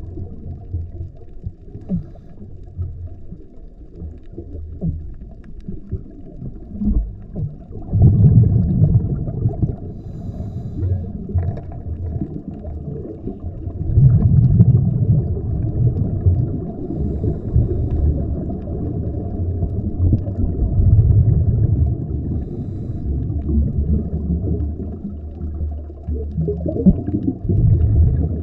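Muffled underwater rumble of scuba bubbles from a diver's regulator, swelling with each exhalation about every six seconds.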